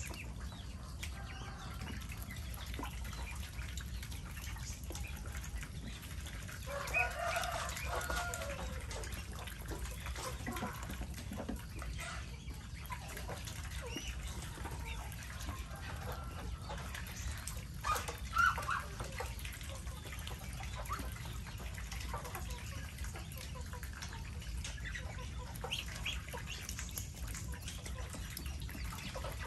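Chickens clucking now and then in a mixed flock of chickens and ducks, with the loudest calls about 7 and 18 seconds in, over a steady low background rush.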